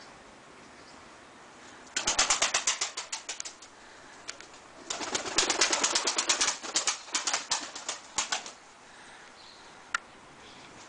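Takla (Turkish tumbler) pigeons flapping their wings: two bursts of rapid wing beats, a short one about two seconds in and a longer one about five seconds in, with a few single clicks between.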